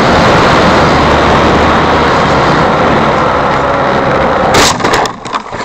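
Model plane's motor and propeller running with wind rushing past the belly-mounted camera, then about four and a half seconds in a sudden loud thump and a few rattling knocks as it hits the sand in a harsh landing, after which the running noise falls away.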